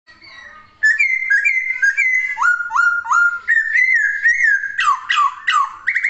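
Caged laughingthrush (poksay) singing loud whistled phrases: a short rising-and-falling note repeated about twice a second, shifting to a lower repeated note partway through, then a few steep downward-swooping whistles near the end.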